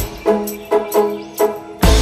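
Instrumental background music: short melodic notes over a steady beat, with a low thump near the end.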